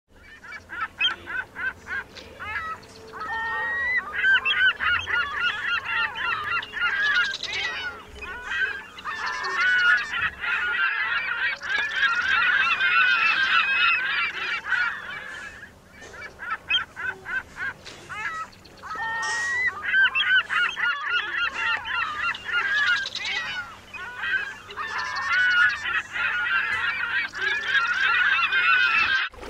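A flock of geese honking, many calls overlapping, in two long bouts with a brief lull about halfway through.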